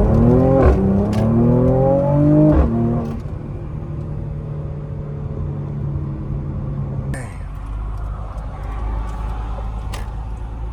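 Mercedes car accelerating hard from a stop, the engine rising in pitch and dropping back twice as the transmission upshifts, then settling into a steady cruise. About seven seconds in the engine tone fades and low road rumble takes over.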